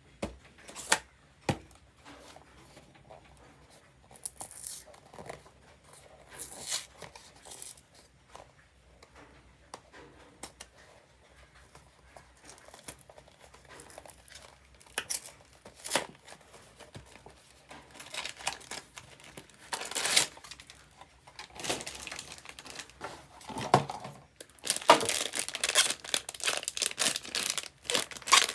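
Hands handling a small cardboard blind box: a few sharp knocks at first, then scattered scrapes as its flaps are opened. For the last few seconds a foil blind bag crinkles loudly as it is pulled out and torn open.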